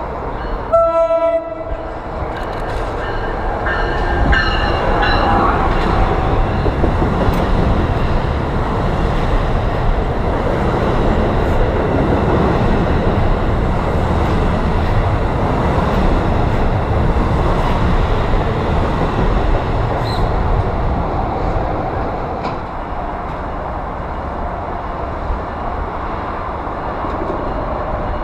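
NJ Transit commuter train of double-deck coaches sounds one short horn blast about a second in. It then runs past the platform with a loud, steady rumble and clatter of wheels on rail that builds over the next few seconds and eases off after about twenty seconds.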